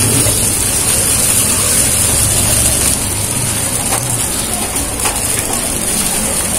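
Beef-and-potato kebab patties sizzling on a grill grate over a charcoal and wood fire: a steady hiss with a few faint pops.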